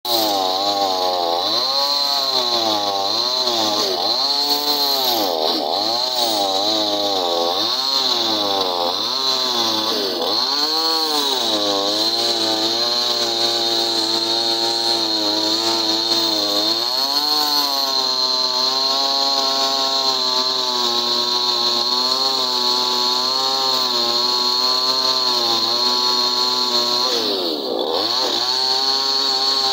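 Chainsaw running under load as it cuts into an elephant carcass. Its engine speed rises and falls about once a second at first, then holds steadier from about halfway, with a brief drop near the end.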